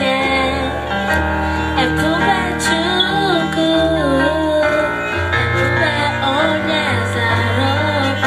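Background music: a song with a sung melody over held keyboard chords and bass notes.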